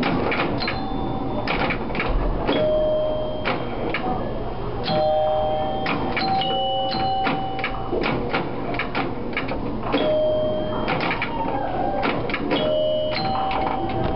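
Vintage electromechanical pinball machine in play: a rapid, irregular clatter of bumpers, flippers and relays, with its chime bells ringing again and again, some notes low and some high.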